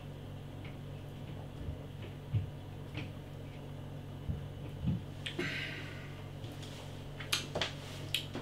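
A man's quiet mouth sounds while tasting a mouthful of beer: soft swallows, a breath out about five and a half seconds in, and a few lip smacks near the end, over a steady low hum.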